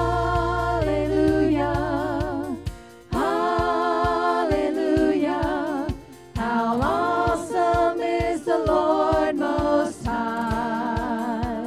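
A small group of women singing a gospel song through microphones in sung phrases with vibrato, over accompaniment with low held notes and then a steady beat. The phrases break briefly about three and six seconds in.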